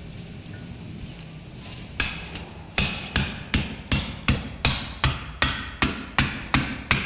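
Hammer blows on a metal rod used as a drift, driving the large pivot pin into an electric scooter's folding mechanism. A single blow about two seconds in, then a steady run of about a dozen sharp metallic strikes, roughly three a second.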